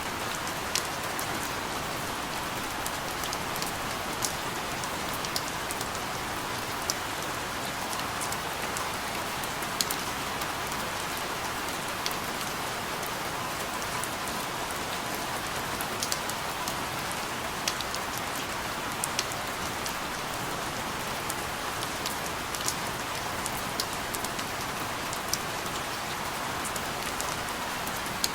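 Steady rain falling, an even hiss with scattered sharper taps of individual drops landing on a surface.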